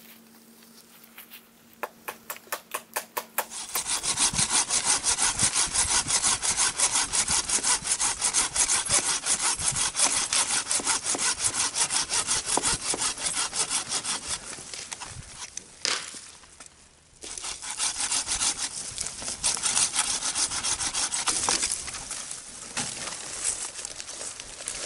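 Hand saw with a red handle cutting through a dead branch, with fast, even back-and-forth strokes of the blade through dry wood. The strokes stop for about a second and a half around the middle, then start again.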